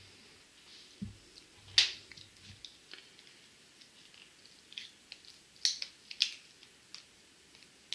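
Plastic caps of whiteboard markers being pulled off and snapped back on: a few sharp clicks, the loudest about two seconds in and two more close together near six seconds, with small handling ticks between.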